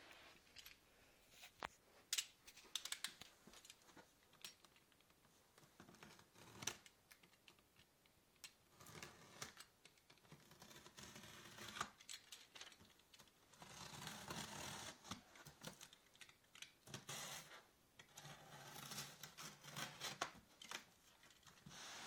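Utility knife cutting packing tape and cardboard on a shipping box, in several long scraping, tearing strokes through the second half. A run of sharp clicks comes in the first few seconds.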